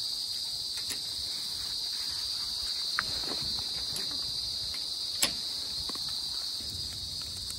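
Steady, high-pitched drone of insects in the forest, with a few faint clicks and one sharper click about five seconds in.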